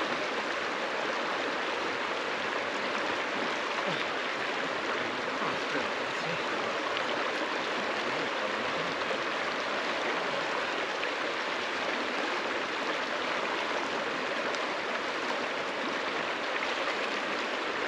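A swollen mountain river running high and rushing steadily over a ford.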